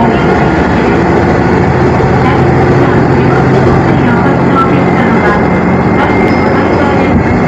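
Tarumi Railway Hi-Mo 330 diesel railbus running along the line, heard from inside the car: a steady low engine hum under even wheel-and-rail noise.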